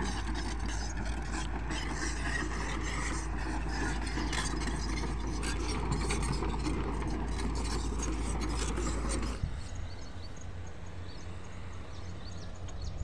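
Hyundai crawler excavator's diesel engine running as it works the embankment, a dense steady sound. About nine seconds in it breaks off abruptly and gives way to a quieter, more distant background.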